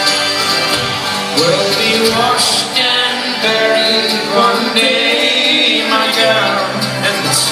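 Band music with singing.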